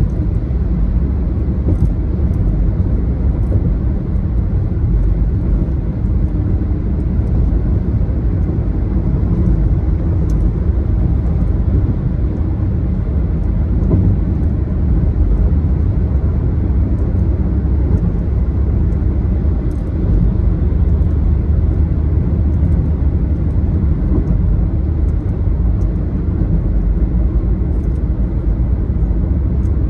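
Steady low road rumble of a car driving, a continuous mix of tyre and engine noise with no distinct events.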